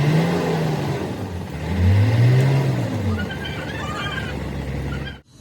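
Overhauled generator engine of a bore well machine revving twice, its pitch rising and falling each time, then cutting off abruptly near the end.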